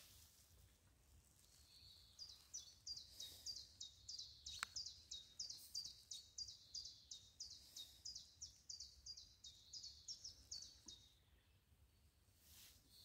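A songbird sings a long run of repeated high, falling notes, about three a second, for some nine seconds. A single sharp click sounds about four and a half seconds in.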